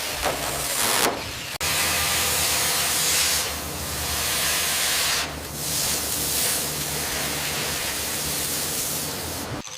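Hissing high-pressure spray over a steady low motor hum, with a sharp break about one and a half seconds in.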